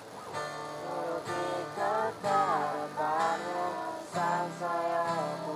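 A voice singing casually along to a strummed acoustic guitar, an unrehearsed sing-along.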